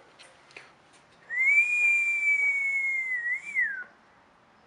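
A person whistling one long note, sliding up at the start, then dipping, rising and falling away at the end.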